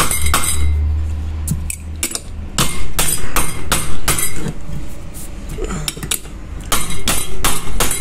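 Light hammer taps on metal, driving a new ball bearing into the electric motor housing of a centrifugal water pump. The taps come in two quick runs of about three a second, with a pause between them.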